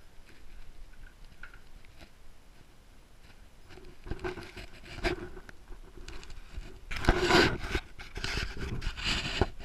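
Rubbing and scraping right against the camera, as fur or hair is pressed against it. The sound is faint at first, comes in short bursts from about four seconds in, and is much louder over the last few seconds.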